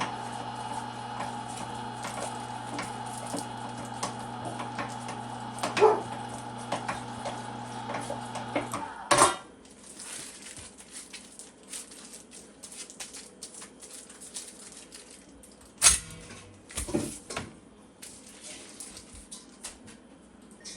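Cabela's Carnivore electric meat grinder running with a steady hum, then shutting off about nine seconds in. Scattered clinks and knocks of metal utensils and dishes follow.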